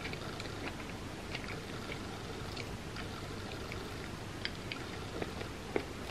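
Chewing a soft cinnamon roll: scattered wet mouth clicks and smacks over a steady background hiss, with a couple of louder smacks near the end.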